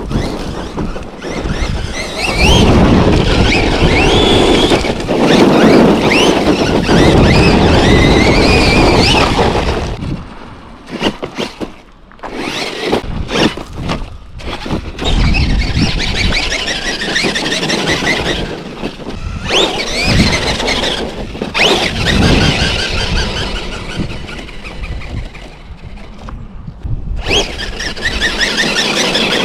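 Losi LMT 2.0 RC monster truck's electric motor and drivetrain whining, the pitch rising and falling with the throttle, over rough running noise. Around a third of the way in it drops to short bursts, then picks up again.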